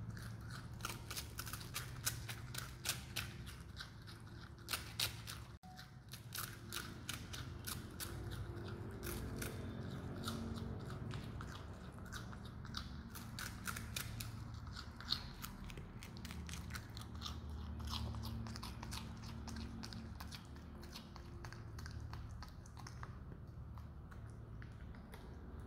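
Himalayan marmot nibbling and chewing sponge cake held in its front paws: quick, regular clicking bites, several a second, with a few short pauses.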